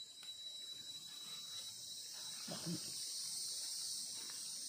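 Insects droning steadily in a continuous high-pitched buzz.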